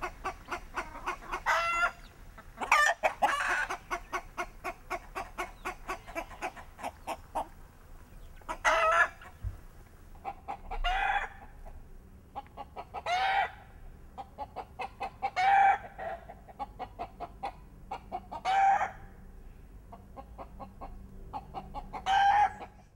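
A flock of chickens clucking in quick runs of short notes, broken by louder calls every two to three seconds.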